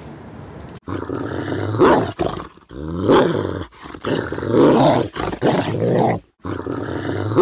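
An animal's low, rough calls, about five drawn out for roughly a second each with short breaks between, starting about a second in.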